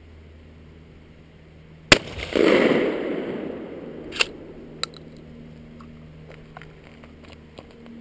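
One shot from a Remington 870 pump-action shotgun: a sharp crack followed by a loud rushing tail that dies away over about a second and a half. About two seconds later, two sharp clicks as the pump is worked back and forward to eject the spent shell.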